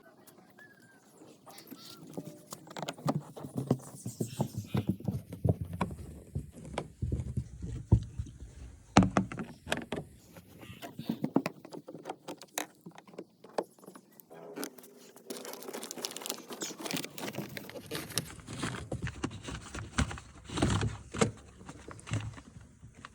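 Irregular clicking, knocking and rattling of hard parts and tools being handled during a washing machine repair, in two busy stretches with a short lull in between.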